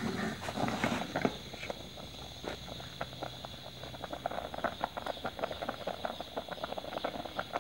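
Milk with fine vermicelli boiling in an aluminium pot, bubbles popping in quick, irregular little pops. A spoon stirs through it in about the first second.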